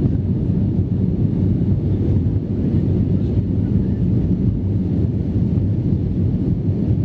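Airliner cabin noise in the climb after takeoff: a steady low rumble of the jet engines and rushing air heard through the fuselage.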